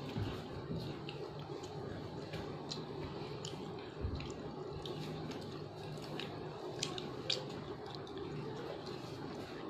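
Crisp biscuits being bitten and chewed, heard as scattered short crunches and clicks over a steady low hum.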